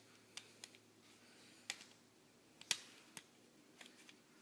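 Faint, scattered clicks and taps of small plastic airsoft pistol parts being handled and fitted together, about six in all, the sharpest a little before three seconds in.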